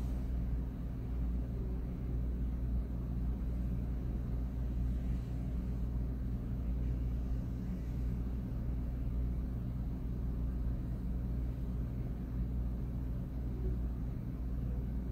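Steady low hum with a few held tones, from a laptop running as Windows boots from its spinning hard drive.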